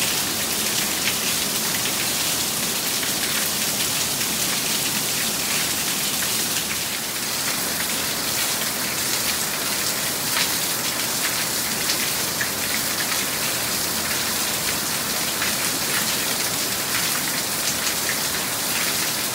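Torrential tropical rain falling steadily: a dense, even hiss sprinkled with countless separate drop ticks.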